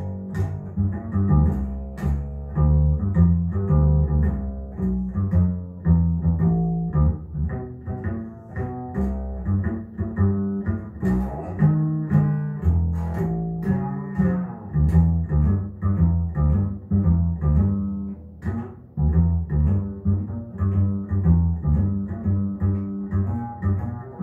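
Recorded jazz playing over a pair of hi-fi loudspeakers driven by a Fezz Audio Silver Luna valve amplifier, led by a plucked double bass with a busy, rhythmic line of deep notes.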